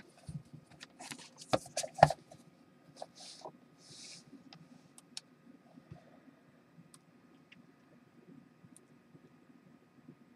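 Small plastic parts being handled and set down on a wooden desk: a few light knocks and clicks in the first two seconds, two short rustles a little later, then a quiet room with occasional faint ticks.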